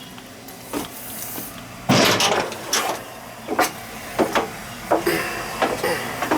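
A series of irregular knocks and clunks, about ten of them, with a louder clatter about two seconds in, over a faint steady low hum.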